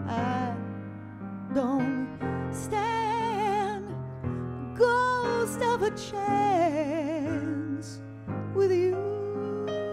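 A woman sings held notes with a wide vibrato over grand piano accompaniment.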